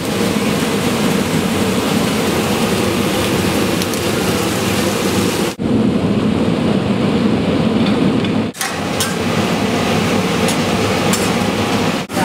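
Diner kitchen noise: a griddle sizzling steadily, with light clicks of utensils. The sound changes abruptly twice, a little over five and about eight and a half seconds in, the middle part duller and without the high hiss.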